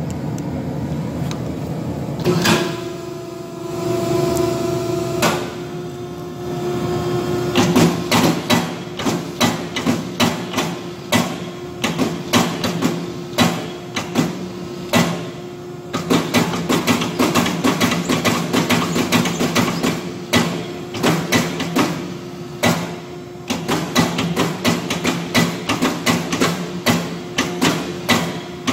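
Power hammer pounding a red-hot steel bar in rapid runs of blows, several a second with short pauses, while forging a nadae (Korean machete) blade. A steady machine hum runs underneath.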